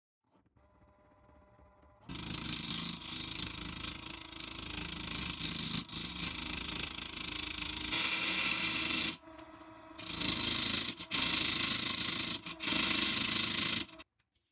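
Wood lathe spinning a wild olive log: a faint motor hum for about two seconds, then the loud, harsh scraping of a turning tool cutting into the wood as the blank is rounded. The cut breaks off for about a second past the middle when the tool leaves the wood, resumes, and stops sharply near the end.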